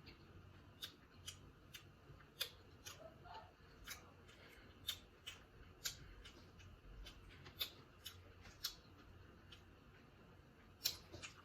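Faint, sharp clicks and cracks at uneven intervals, about one or two a second, of seafood boil shells being cracked and picked apart.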